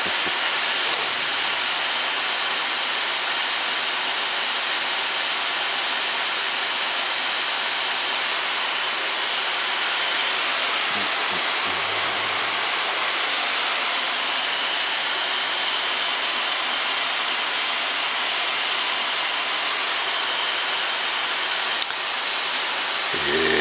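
Steady rushing noise on the flight deck of a Boeing 737-800 in flight: airflow over the nose and windshield mixed with the cabin air-conditioning, holding a constant level. A single click sounds just before the end.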